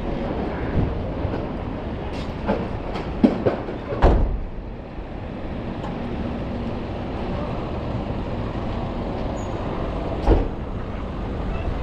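Steady low rumble of city street noise, with a cluster of sharp clacks between about two and four seconds in and one more about ten seconds in.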